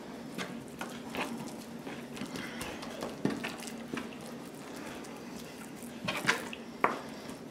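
Hands handling raw chicken thighs on a plastic cutting board: soft, scattered handling sounds as the thighs are lifted and turned over, with a few sharper taps about three seconds in and again near the end. A faint steady hum runs underneath.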